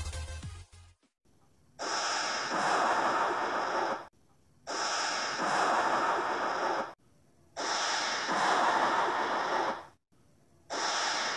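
Lightning-strike sound effect: a harsh hissing electric noise with little deep rumble, looped in identical bursts of about two and a half seconds. Three full bursts with short silent gaps between them, and a fourth starting near the end.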